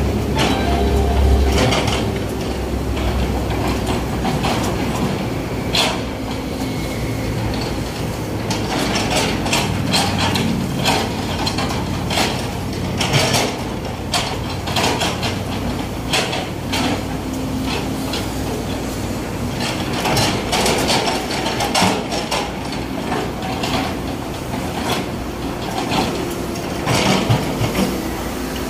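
Hydraulic excavator running steadily while its steel bucket digs and scrapes through rocky soil, with irregular clanks and rattles of bucket and stones.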